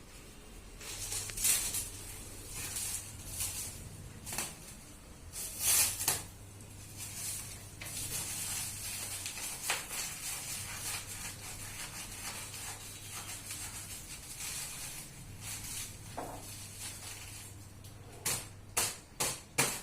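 A new bicycle's cardboard and plastic packaging being pulled and handled, rubbing and rustling unevenly as it resists opening. Near the end comes a quick run of sharp taps.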